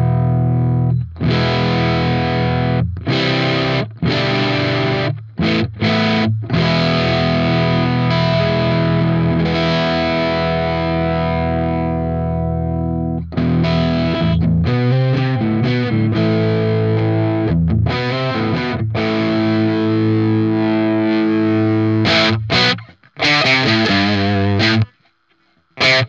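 Electric guitar played through an engaged TC Electronic Vintage Distortion pedal, a 90s RAT-circuit distortion, giving heavily distorted chords and riffs. The playing breaks off briefly several times and turns choppy, in short stabs, near the end.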